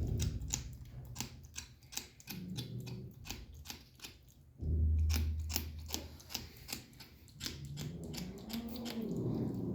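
A kitten eating, its mouth making quick clicking sounds several times a second. A low hum comes in twice, the louder stretch about five seconds in, and near the end the kitten makes a low, wavering sound as it eats.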